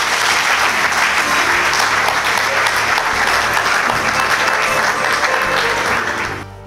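An audience applauding with a steady clatter of clapping over music in the background. The clapping fades out near the end.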